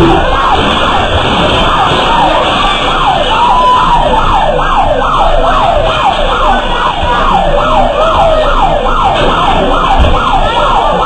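Electronic alarm siren sounding in a fast, repeating yelp: about two to three falling sweeps a second, with one slower, longer wail in the middle.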